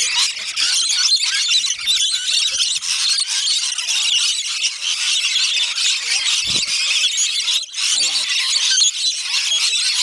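A large flock of rainbow lorikeets screeching and chattering nonstop as they crowd together to feed, many shrill calls overlapping into one dense din.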